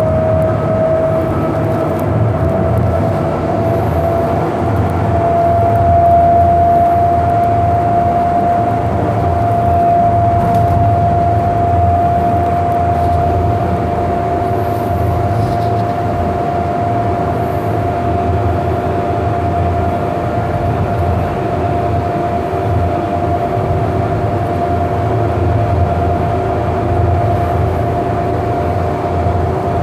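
Siemens S200 light rail vehicle running, heard from inside the car: a steady motor whine that rises slightly in pitch over the first few seconds and then holds, over a low rumble of the wheels on the rails.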